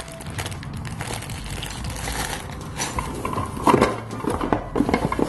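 Sealed plastic bags of small toy parts rustling and crinkling in the hands, with irregular clicks and knocks, louder in the last couple of seconds as the cardboard box is handled.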